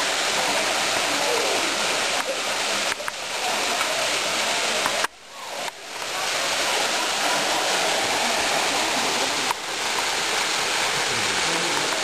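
Waterfall rushing over rock, a steady dense hiss that dips sharply for about a second around five seconds in.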